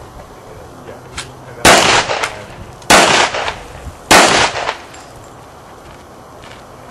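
Three pistol shots fired through an AAC Cyclone suppressor, about a second and a quarter apart, each followed by a short echo.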